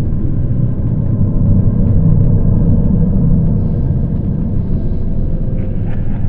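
Dark horror-ambience drone: a steady low rumble with a few faint held tones above it.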